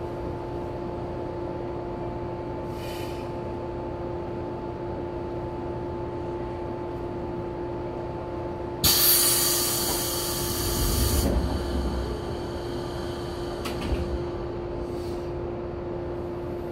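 Standing 415 series 1500-subseries electric train car heard from inside: a steady electrical hum, then about nine seconds in a sudden loud hiss of compressed air from the car's air system that lasts a couple of seconds and cuts off, followed by a low rumble and a single click.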